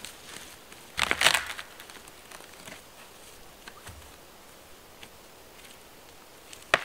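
A long dead birch pole dropped onto the dry forest floor, with a half-second rush of crackling twigs and grass about a second in. Faint crackles and steps in the litter follow, then a single sharp crack near the end as the pole is taken hold of again.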